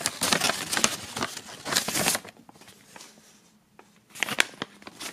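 Paper rustling and crinkling as folded sheets are handled, busiest for the first two seconds, with a short rustle again about four seconds in.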